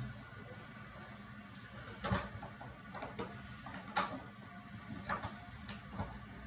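Household cleaning: about half a dozen irregular knocks and scrapes of something against hard surfaces over a steady low hum. The first strokes come about two seconds in, and the loudest is about four seconds in.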